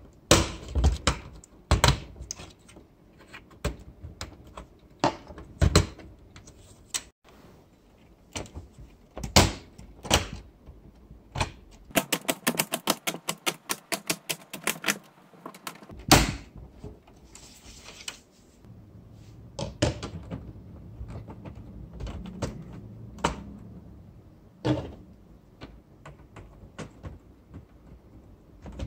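LEGO Technic plastic pieces clicking and snapping as blue friction pins are pressed into beams and panels are pushed into place by hand: a string of separate sharp clicks and knocks, with a rapid run of clicks in the middle.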